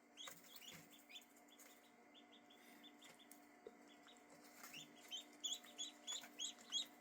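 Faint, rapid high peeping of young ducklings and goslings, in scattered runs that grow steadier and louder over the last two seconds, over a faint steady hum.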